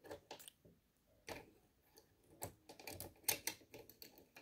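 Irregular light metal clicks and taps as a walking foot is fitted to a sewing machine's presser bar and its screw is turned.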